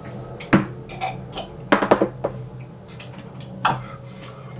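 A man gagging and retching in short heaves, sickened by the smell of freshly opened surströmming (fermented herring). The heaves come about half a second in, as a quick cluster around two seconds in, and once more near the end.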